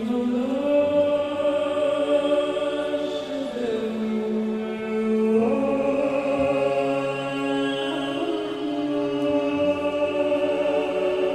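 Slow, meditative music with long held, chant-like vocal notes that step to new pitches every few seconds over a steady low drone.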